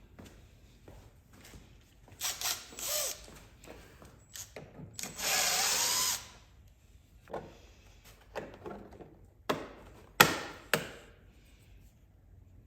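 Cordless drill-driver backing out small panel screws in two short runs a few seconds apart, its motor pitch wavering as it spins. A few sharp clicks and knocks follow near the end.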